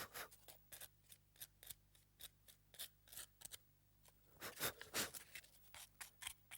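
Sandpaper rubbing down the side of a toy boat in quick short strokes, about three or four a second, with a short break a little past the middle, smoothing dried filler.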